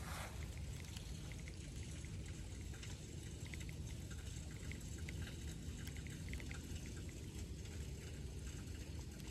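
A baitcasting reel being cranked in a retrieve, heard as faint light clicks over a steady low rumble of breeze on the microphone.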